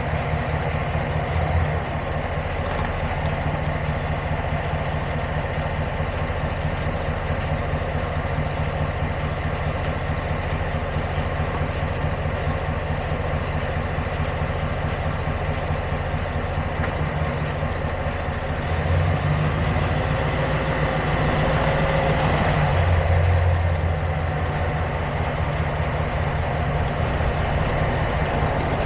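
Vehicle engine idling steadily, a little louder for a few seconds about two-thirds of the way through.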